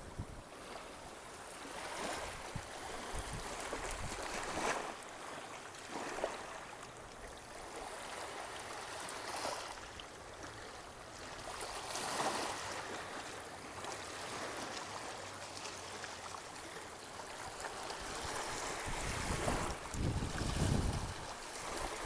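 Sea waves washing onto a beach as a steady rushing noise, with wind buffeting the microphone at times, most strongly near the end.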